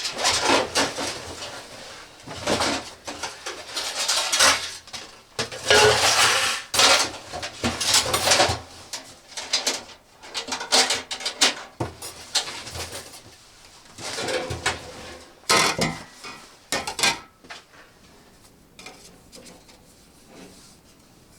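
Hard objects being handled and set down, clinking and clattering in irregular bursts with rustling between, dying down about three-quarters of the way through.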